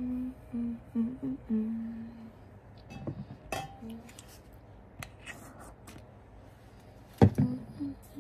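A woman humming a tune in short, broken phrases. Several knocks and rustles from handling break in, the loudest a sharp knock about seven seconds in.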